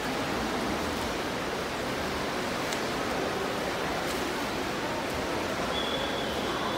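Indoor swimming pool ambience: a steady rush of noise in the hall, with swimmers splashing as they swim freestyle in the lanes.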